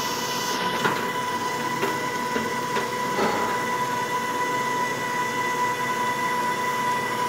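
Electric stand mixer running steadily with a constant whine, beating batter in its steel bowl, with a few light clinks of bowls being handled.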